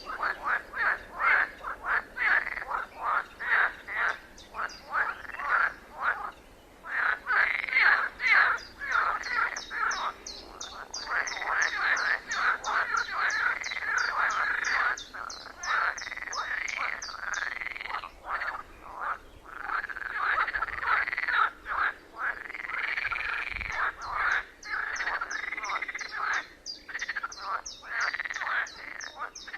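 A chorus of frogs croaking, with many overlapping calls repeating in quick pulsed series.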